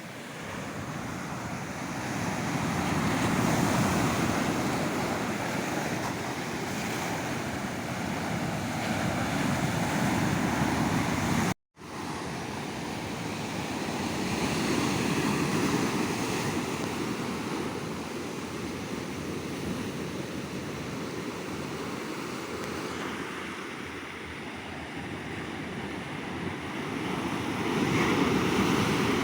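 Ocean surf on a beach: waves breaking and washing in, swelling louder and fading in slow surges every several seconds. The sound cuts out completely for a moment about twelve seconds in, then resumes.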